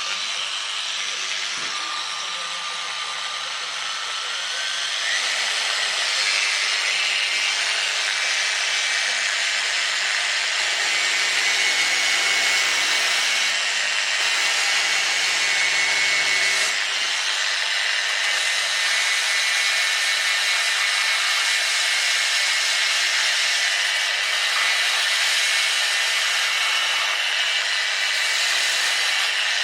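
Proxxon BS/E mini belt sander running, a gritty whirr with a whine on top that rises in pitch a few seconds in as the motor speeds up, then holds steady. From about ten to sixteen seconds in, a lower hum joins the sound.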